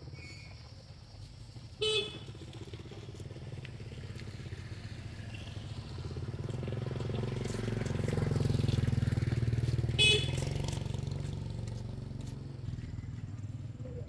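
A motor vehicle engine hums steadily, swells as it passes close, loudest about nine seconds in, then fades. Two short honks sound, about two seconds in and again about ten seconds in.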